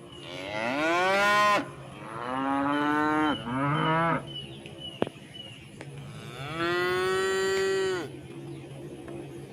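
Cows mooing: four long, loud moos, the first rising in pitch, two close together in the middle and one more about seven seconds in.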